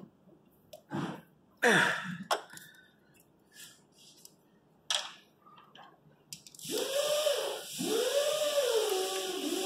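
Scattered metal clicks and clinks of a ratchet and wrench on the alternator mounting and belt tensioner. About seven seconds in, a louder wavering wail starts, rising and falling in pitch about once a second, with a hiss behind it.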